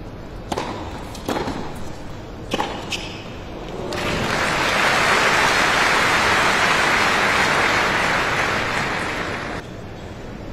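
Tennis rally: several sharp pops of racket on ball in the first three seconds, then the crowd applauds the point loudly for about five and a half seconds before the sound cuts off suddenly.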